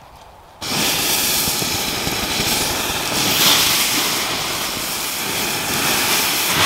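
Water poured from a plastic bottle onto hot campfire embers, hissing steadily as it turns to steam: the fire being put out. The hiss starts suddenly about half a second in.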